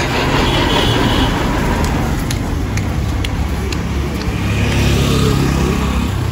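Road traffic noise from passing motor vehicles, with one engine's hum growing louder about four seconds in.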